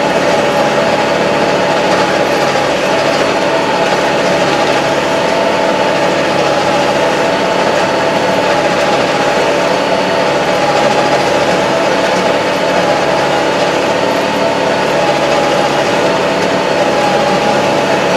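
2021 Kubota MZ755 tractor's diesel engine running at a steady speed, heard from inside the cab as the tractor drives slowly through tall grass.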